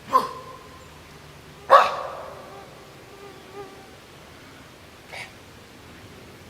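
Three short, sharp bark-like calls: the first two about a second and a half apart, the second the loudest, and a fainter third about three and a half seconds later.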